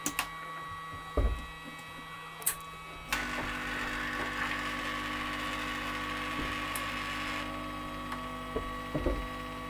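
Electronics rework bench equipment running: a steady fan hum with fixed tones. About three seconds in, a louder airy fan noise with a low drone starts up, the airy part easing off a few seconds later while the drone continues. A few light clicks.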